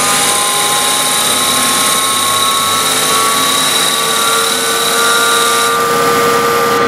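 CNC lathe running under constant surface speed, its spindle turning while the tool cuts a metal knob blank under flood coolant: a steady machine whine over cutting noise, its tones drifting slowly in pitch.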